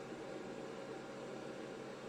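Faint, steady hiss with a low hum underneath: background room tone, with no distinct event.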